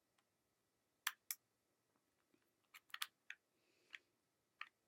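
Rubik's Cube faces being twisted by hand: a scattering of short plastic clicks, several in quick succession near the middle, with near silence between them.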